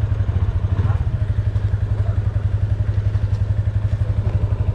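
Motorcycle engine idling with a steady, even beat.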